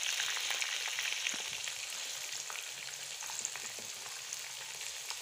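Masala-coated fish pieces deep-frying in hot oil in a wok: a steady sizzle with scattered small pops and clicks as a slotted metal spoon turns the pieces.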